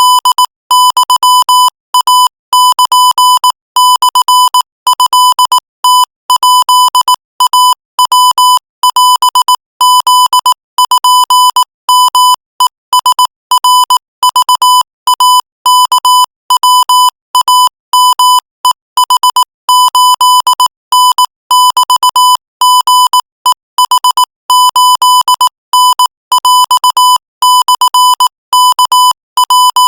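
Morse code sent at 22 words per minute: a single-pitched beep keyed on and off in short dots and longer dashes, with short gaps between letters and longer gaps between words.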